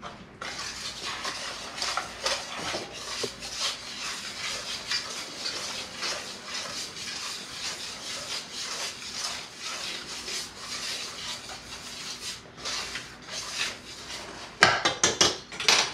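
Wire whisk scraping and clicking rapidly against a metal pan while whisking buttermilk, with a louder clatter of utensil on pan near the end.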